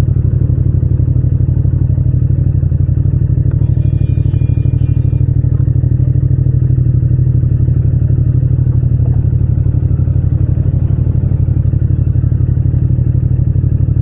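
Yamaha MT-07's parallel-twin engine running steadily at an even engine speed while the bike rolls slowly through traffic, a deep pulsing exhaust note with no revving.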